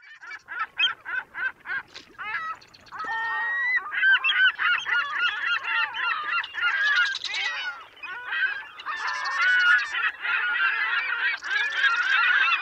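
A flock of birds calling: a few separate calls at first, then many overlapping calls from about two seconds in.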